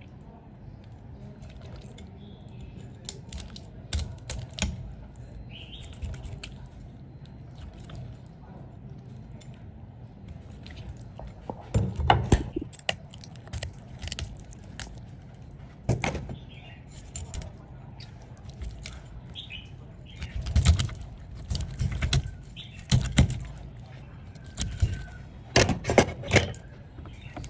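Irregular clinks, knocks and rattles from kitchen utensils and dishes being handled during food preparation, over a steady low background hum, with a handful of heavier knocks spread through the second half.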